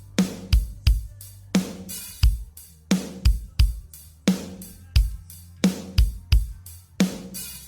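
Drum kit playing a steady dance beat: kick drum and snare alternating, with hi-hat over a low bass line, and no vocals.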